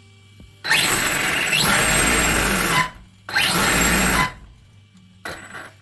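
A 1/7-scale RC desert truck's electric motor and drivetrain being throttled up with the wheels spinning free, in three bursts: a long one of about two seconds that starts with a rising whine, a second of about one second, and a short blip near the end.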